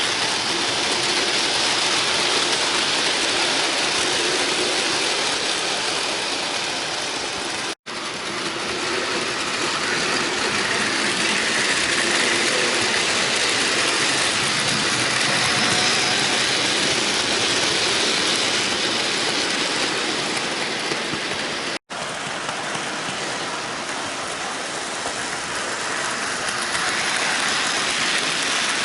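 Bachmann model trains running on the track of a model railway: a steady rushing hiss of wheels on rails and motor whir, broken twice by a split-second drop to silence.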